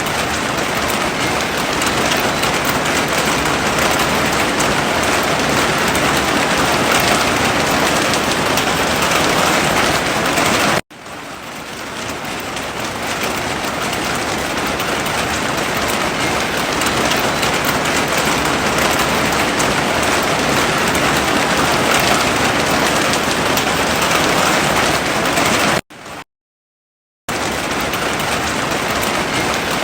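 Heavy rain falling, a dense steady hiss. It cuts out abruptly about eleven seconds in and swells back up, then drops to silence for about a second near the end before resuming.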